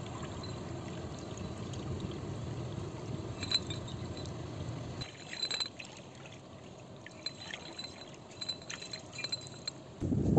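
Outdoor ambience beside shallow water: a steady low rush that drops off about halfway, then a quieter stretch with scattered faint clicks and short high chirps. Near the end comes a sudden louder rumble of wind on the microphone.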